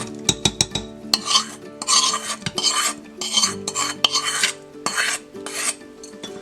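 A spoon stirring roasted wheat flour into jaggery water in a pan. It makes a few metal clinks at first, then repeated scraping strokes about twice a second that stop shortly before the end.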